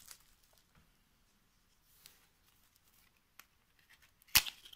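Mostly near silence, then near the end a sharp snap followed by crinkling and rustling as a small cardboard card box is pried open.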